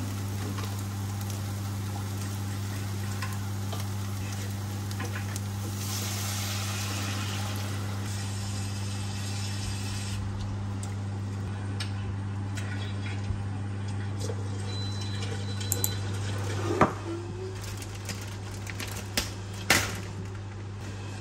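Corn, potato and onion sautéing in a stainless steel pot: a steady sizzle over a low hum, easing off after about ten seconds. A few sharp knocks follow near the end.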